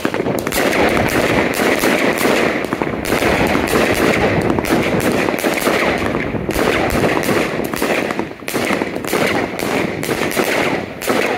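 A 30-shot, 500-gram consumer firework cake firing in a rapid barrage: a quick run of sharp shots with dense crackling between them. The barrage eases briefly about eight seconds in, then picks up again.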